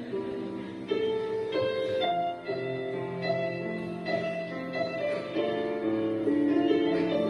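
Piano accompaniment playing an instrumental passage of a slow ballad, with sustained chords and a few single notes above them.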